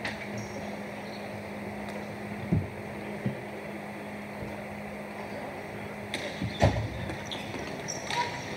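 Ball hockey play: scattered knocks of sticks and ball, the loudest about two-thirds of the way through, and a few short squeaks, over a steady low hum.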